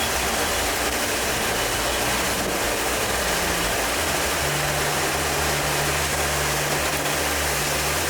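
Hurricane-force wind and rain lashing a car, a loud steady rush, with the car's engine humming low underneath.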